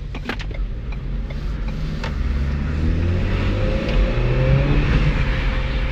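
Turbocharged car engine accelerating with its air intake removed, its pitch rising over a few seconds. The open intake makes the turbo louder.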